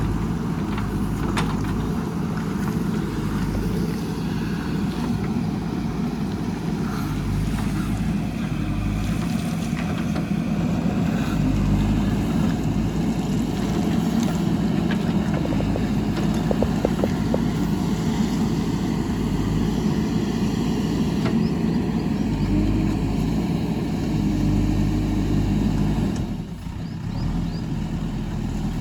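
Diesel engine of a JCB backhoe loader running steadily under work. There are a few faint knocks, and the engine sound dips briefly near the end.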